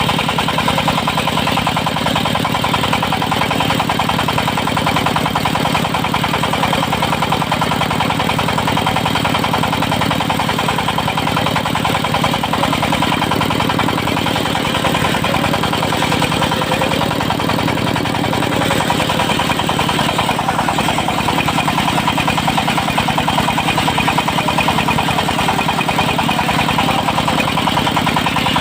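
Diesel engine of a portable circular sawmill running steadily, driving a 70 cm circular saw blade, with a fast even engine pulse.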